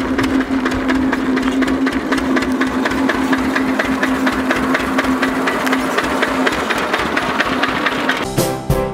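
Engine of a small open farm vehicle running with a fast, even knocking beat as the vehicle drives up and passes close by. Piano music comes in near the end.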